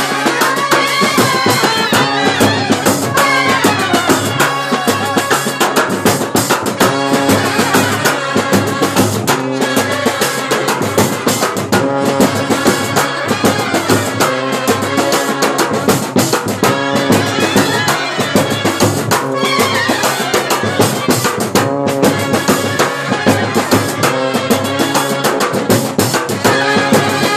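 A Kerala band set playing live: trumpets and clarinets carry the tune over bass drums and side drums beating a steady rhythm.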